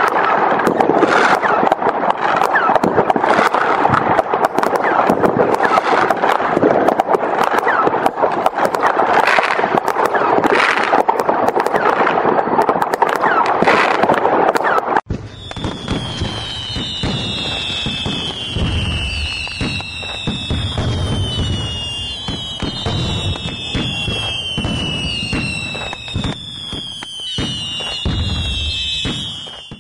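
Fireworks going off: a dense, continuous run of crackling and bangs. About halfway through the sound cuts abruptly to a quieter stretch of repeated falling whistles over low thuds.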